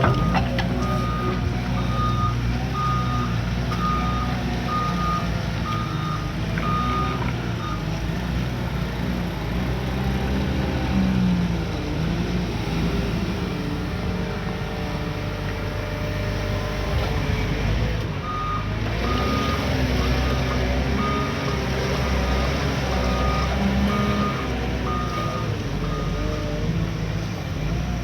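Diesel engine of a heavy earthmoving machine running and changing pitch under load, with its reverse alarm beeping about once a second in two runs, near the start and again in the second half.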